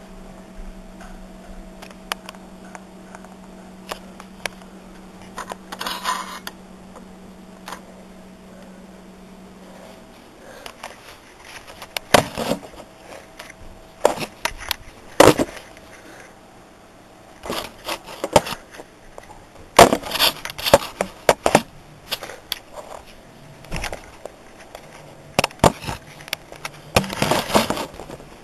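Hands working on a toy racing scooter: scattered sharp clicks, knocks and scrapes of small parts, busiest in the second half. A steady low hum runs under the first third and then stops.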